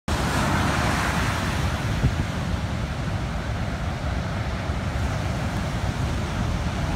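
Ocean surf breaking and washing ashore in a steady rush of churning water, with wind buffeting the microphone.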